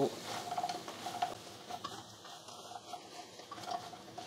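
Wooden spatula stirring and tossing fried chicken pieces in a sticky sauce in a pan, coating them. It makes faint, irregular taps and scrapes.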